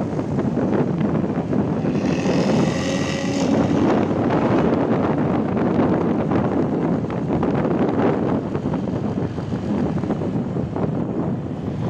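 Intercity bus engine and loud growling exhaust running at road speed, with wind on the microphone. A brief high-pitched tone sounds about two seconds in and lasts a second and a half.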